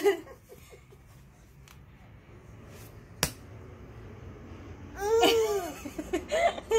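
A baby laughing and giggling in short high-pitched bursts, starting about five seconds in and again near the end, after a quiet stretch broken by a single click.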